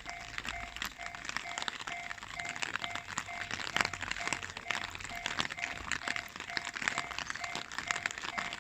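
Japanese railway level-crossing warning bell ringing, an electronic clang repeating about twice a second, over a dense crackling noise.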